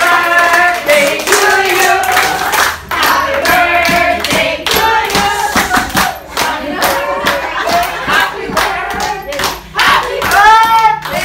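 A group of people singing together while clapping in time.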